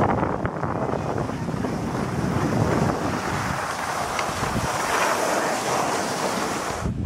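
Wind buffeting the microphone and skis hissing over snow during a downhill run, a steady rushing noise that cuts off sharply at the very end as the skier stops.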